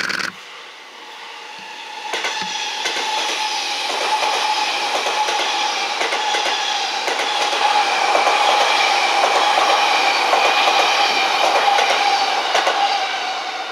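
Sotetsu 11000 series ten-car electric train passing without stopping. A short, loud pitched blast ends just after the start. From about two seconds in, the pass builds to a steady loud run of wheels clacking over rail joints and points, with a steady whine, easing slightly near the end.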